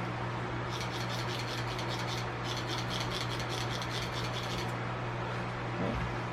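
Tire lube being rubbed onto a tight tire bead in quick rhythmic strokes, in two runs with a short break between them, over the steady hum of a garage fan.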